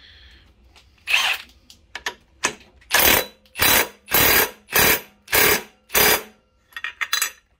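Handheld power tool turning the prop tool in short trigger pulses, tightening a new prop onto a Sea-Doo 140mm jet pump shaft. There is one burst about a second in, then six short even bursts, nearly two a second, and a few weaker ones near the end.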